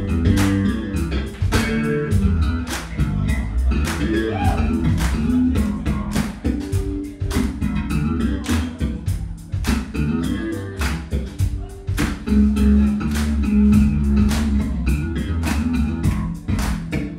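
Live band playing a funky groove: a drum kit keeping a steady beat under electric guitar, bass guitar and keyboards.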